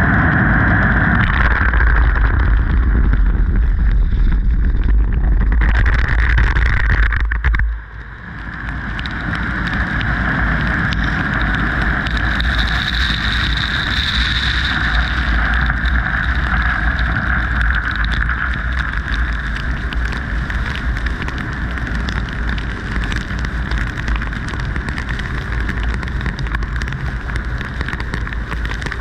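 D&S IQ soft-touch automatic car wash working over a car: water spraying and rotating foam brushes sweeping the body, a steady rushing wash noise. A heavy low rumble under it cuts off abruptly about seven seconds in.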